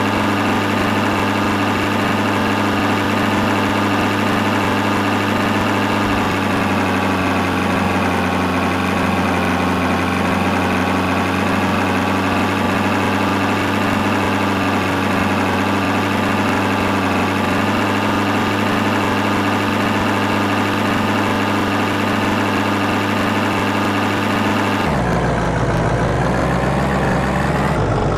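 A heavy vehicle engine idling steadily. Near the end the sound changes, turning deeper with less treble.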